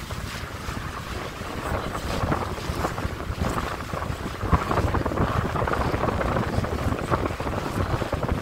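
A tour cruise boat's engine runs with a steady low rumble, while wind buffets the microphone in uneven gusts.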